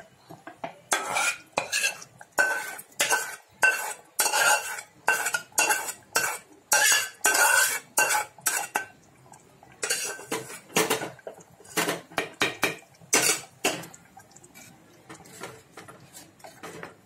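A metal spoon scraping and knocking against a metal pan about once a second, with a short ring on many strokes, as curry masala is scooped out into a clay pot. After about ten seconds the strokes get sparser and fade as the spoon stirs the masala into the pot.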